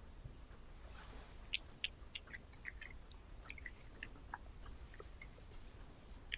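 A cat chewing a small piece of raw beef: faint, irregular little clicks and smacks of its mouth.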